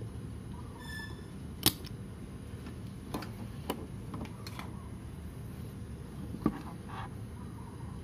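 Spring-loaded desoldering pump firing at a mouse circuit board with a sharp snap about a second and a half in, sucking up molten solder to free a part. A few lighter clicks and taps follow, then another sharp click later on, over a steady low hum.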